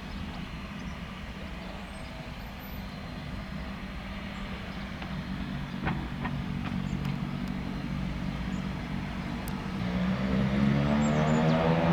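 Beechcraft King Air A90's twin Pratt & Whitney PT6A turboprop engines running with a steady low hum, then from about ten seconds in rising in pitch and growing louder as power comes up for the takeoff.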